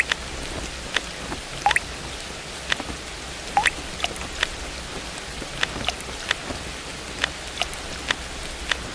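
Steady rain with large single drops landing irregularly, about one or two a second, some with a short plink that drops in pitch.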